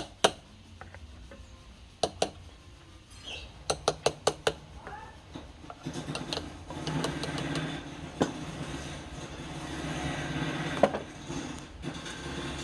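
Sharp knocks, including a quick run of about five, then from about six seconds in a wood lathe's motor running steadily, with more single knocks over it.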